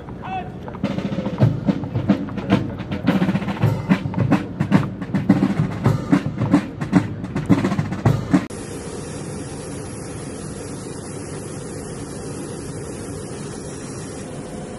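Horses' hooves clopping irregularly on concrete tarmac as a mounted color guard walks off. About 8.5 s in this cuts suddenly to the steady hum of a C-130J transport's turboprop engines turning its propellers.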